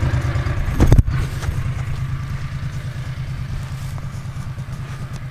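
Engine of an old farm utility vehicle (a Gator) running with a steady low pulsing, with a loud thump about a second in. The engine then grows gradually quieter.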